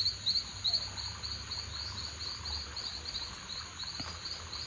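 Insects chirping: a short high chirp repeated about four times a second over a steady high-pitched insect drone.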